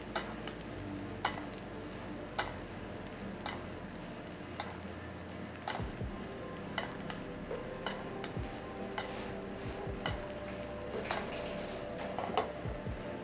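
A corvina fillet frying in butter with thyme in a pan, sizzling steadily, while a spoon bastes it with the hot butter and clinks on the pan about once a second.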